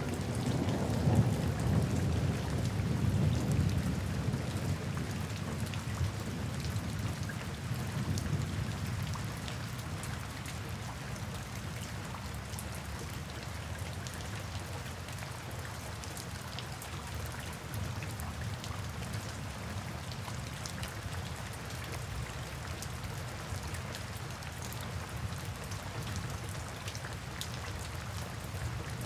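Steady rain falling, with a scattering of individual drops ticking. A low rumble of thunder swells about a second in and dies away over the next few seconds.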